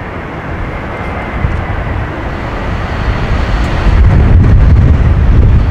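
Boeing 737 Classic airliner's CFM56 turbofan engines, a steady jet rumble that grows louder, swelling with heavy low rumble about four seconds in.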